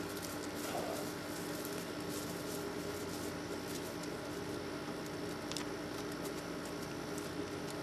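Steady background noise: a constant hiss with a low steady hum and a few faint scattered ticks, with no distinct event.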